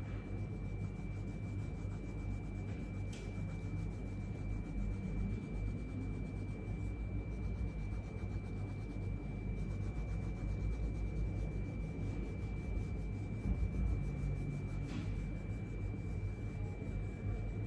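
Pink colouring pencil rubbed back and forth on paper, a continuous scratchy shading sound with a few light taps of the tip. A faint steady high whine runs underneath.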